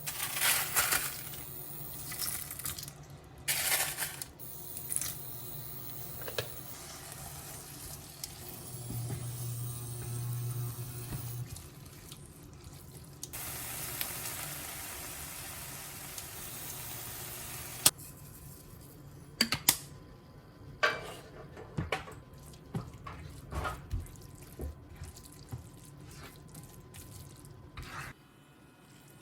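Kitchen work sounds: a water tap runs for about four seconds in the middle and shuts off sharply, among scattered clinks and knocks of dishes and utensils. A low steady hum sits under the first half.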